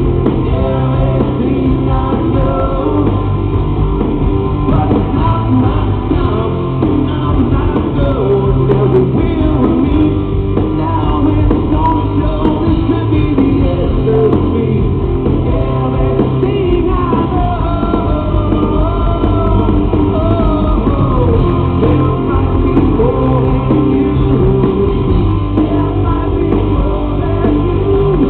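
Rock band playing live, with a male lead singer over electric guitar, bass and drums.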